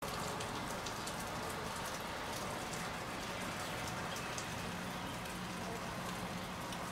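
Steady rain falling, an even hiss dotted with many small sharp drop ticks, during a tornado-producing thunderstorm. A faint low hum sits underneath in the second half.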